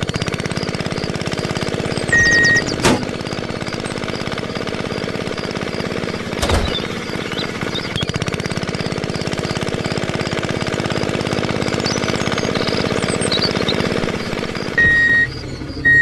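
Tractor engine chugging steadily at a fast even rate, with a short high beep of a horn about two seconds in and two more near the end, and two sharp clicks.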